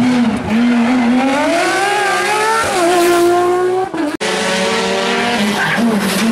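Rally cars at full throttle. A Porsche 911 rally car accelerates out of a bend, its engine note rising through the gears with a shift about two and a half seconds in. After a sudden cut, a second rally car runs hard, its engine note dropping near the end.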